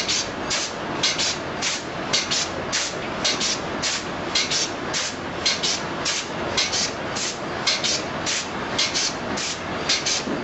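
Two-cavity toilet soap stamping machine running, a steady mechanical din with short hissing bursts in a quick, uneven rhythm, two or three a second.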